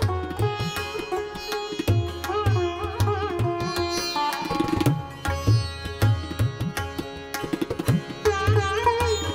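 Background instrumental music in Indian classical style: a plucked string melody with sliding, bending notes over a steady hand-drum beat.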